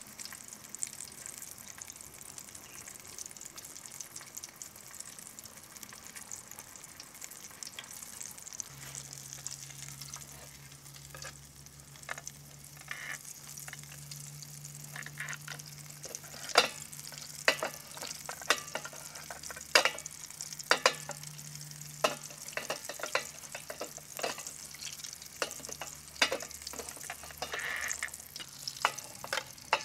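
Coated pork chop deep-frying in hot peanut oil in an aluminium mess tin: a steady fine sizzle and crackle, with sharp pops and clicks coming thicker and louder in the second half.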